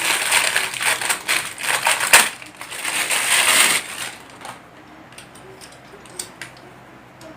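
Packaging crinkling and rustling as a part of a microphone stand is unwrapped by hand, with many small crackles. It dies down about four seconds in to a few light clicks of handling.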